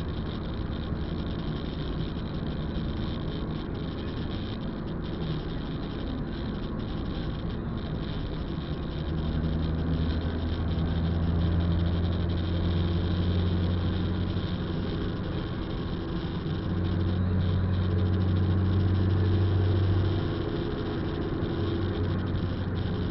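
Car driving on a wet road, heard from inside the cabin: steady tyre and road noise with the engine running. About nine seconds in, a low engine drone comes up and stays louder until about twenty seconds in, then drops back.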